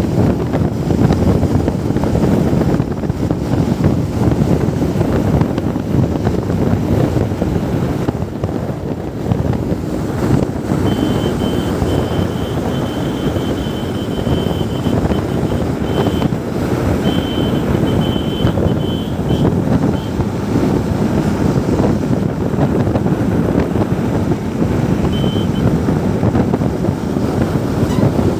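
Wind buffeting the phone's microphone on a moving Hero Xtreme 160R motorcycle, over the bike's running single-cylinder engine and road noise. A thin, high beeping comes and goes through the middle stretch.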